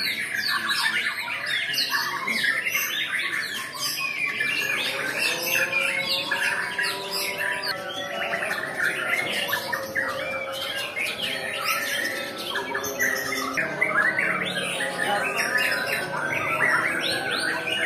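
Many caged white-rumped shamas (murai batu) singing at once, competing in a dense, continuous tangle of overlapping chirps, whistles and song phrases.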